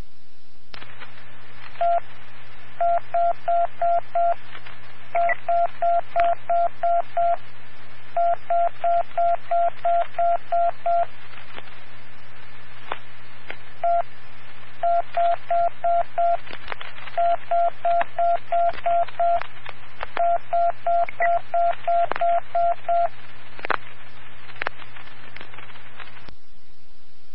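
Fire alarm box tones sent over the dispatch radio, tapping out box number 1579. Single beeps come in groups of one, five, seven and nine, and the whole number is struck twice. A steady radio hum runs under them, and a couple of clicks come near the end.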